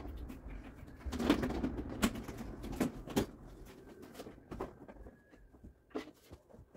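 Small household objects being handled: a scatter of knocks and clicks with some rustling as things are lifted out of a plastic storage box and set down on a metal-and-wood shelf, the busiest stretch a second or two in.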